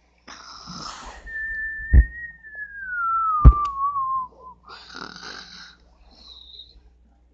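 Cartoon-style snore: a rasping snore on the in-breath, then a long whistle sliding down in pitch on the out-breath, then another rasping snore and a short high whistle. Two sharp clicks sound during the long whistle, the loudest moments.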